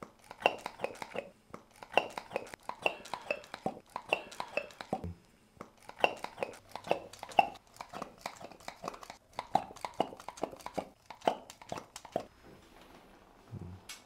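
Handheld pump gun of a plastic cupping set drawing suction on cups: a rapid, irregular run of plastic clicks and clacks with short squeaky notes, several a second, which stops about two seconds before the end.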